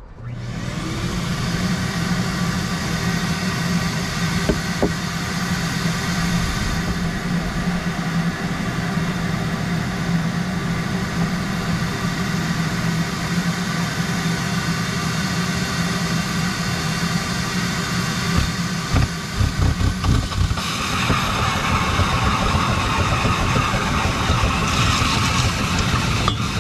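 Shop vacuum switched on and running steadily, pulling suction on the tractor's hydraulic fill opening to hold the fluid back during a hydraulic filter change. It spins up in about the first second, and about twenty seconds in its sound turns brighter and more hissy.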